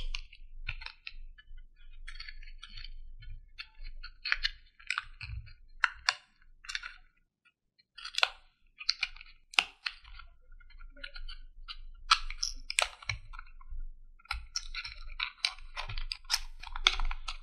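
Small thin cardboard box handled and opened by hand: irregular scratching, rubbing and sharp clicks of fingers on the card as its end flap is worked open, with a short pause about halfway through.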